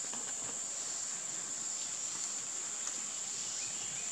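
Steady high-pitched drone of insects, with a few faint clicks from the air rifle's parts being handled.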